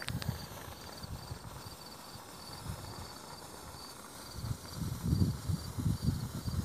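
Black match fuse burning along its length on gravel with a faint fizz, under a cricket chirping steadily at about three chirps a second. A sharp click comes at the very start, and low muffled rumbling on the microphone rises in the last couple of seconds.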